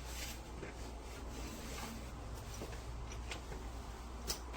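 Hardside carry-on suitcase being handled and fitted onto another suitcase: a low rubbing and scraping with a few light clicks, and one sharper click near the end.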